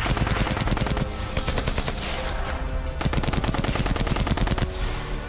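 Machine gun firing long, rapid bursts, with a short lull about halfway through.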